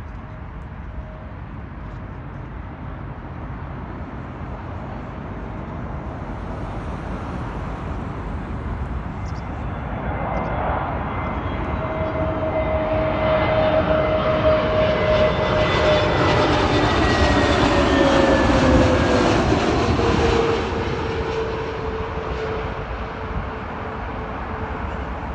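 An Airbus A320neo airliner's twin turbofan engines passing on approach to land. The engine roar builds steadily to a peak about two-thirds of the way in, its whine drops in pitch as the plane goes by, then the sound falls away as it recedes.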